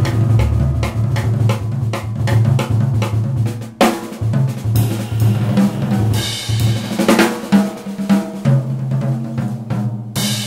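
Music with a steady, fast drum-kit beat over a bass line.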